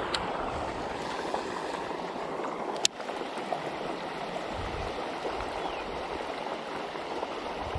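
Creek water flowing steadily, an even rushing hiss, with one sharp click about three seconds in.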